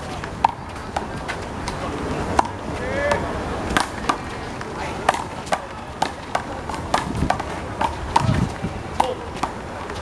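One-wall handball rally: the rubber ball is slapped by hand and smacks against the concrete wall, a string of sharp cracks that come about every half second from about four seconds in. Voices can be heard behind it.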